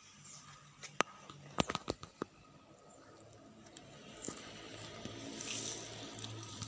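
Close handling noise: rustling with a few sharp clicks between about one and two seconds in, growing slightly louder toward the end.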